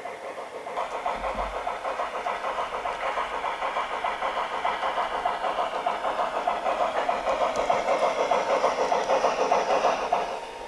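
Garden-railway model of HSB steam locomotive 99 7245 running, its sound unit chuffing in an even rhythm that grows louder as it draws near, then drops away abruptly near the end.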